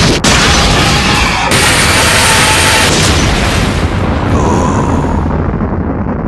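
A loud, long rumbling boom, like an explosion sound effect, with a brighter hiss between about one and three seconds in that eases off toward the end.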